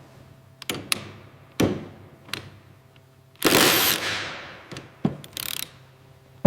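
Workshop mechanical sounds: a series of sharp metallic clicks and knocks, with a loud burst of hiss-like noise about three and a half seconds in that fades away, and a shorter burst near the end.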